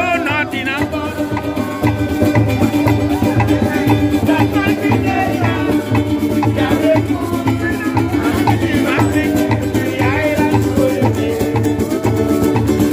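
Live string band of acoustic guitars, banjos and a hand drum playing an upbeat dance tune with a steady beat.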